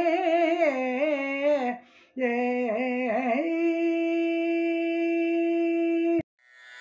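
A bhajan singer's voice drawing out the final wordless phrase with wavering ornamental turns, a short break about two seconds in, then one long held note that cuts off abruptly near the end. Instrumental music begins fading in just after.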